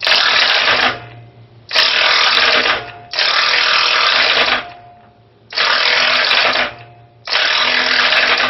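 Corded Hyper-Tough 1/2-inch impact wrench hammering on a water heater's seized anode rod hex, in five bursts of about a second each with short pauses between, working to break the stuck rod loose.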